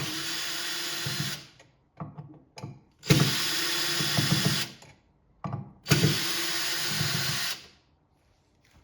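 Cordless power drill with a socket bit running in three short bursts, about 1.5 seconds each, with small clicks between them, as it unscrews a tight fastener holding the inner drum of a portable washing machine.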